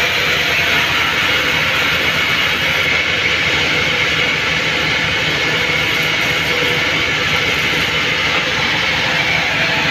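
Band sawmill running steadily as its blade rips through a mahogany beam: a continuous, loud machine noise with the blade's hiss through the wood.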